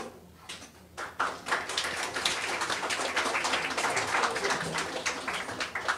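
Audience applauding: a few scattered claps, then steady clapping from about a second in that thins out near the end.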